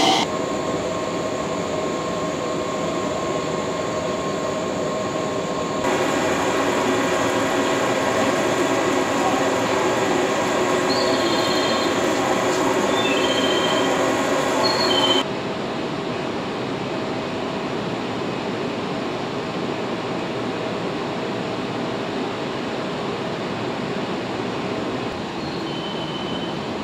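JR West 113 series electric train at a station platform: a steady mechanical running hum with some held tones, with a few short high squeals in the middle. The sound jumps abruptly twice, where the recording is cut.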